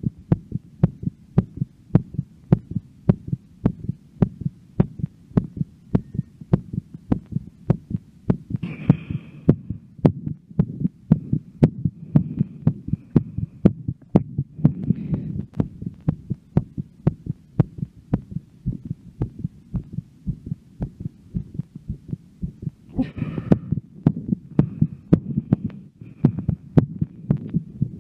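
A woman's heartbeat, fast and regular after a workout: a steady train of low thumping beats.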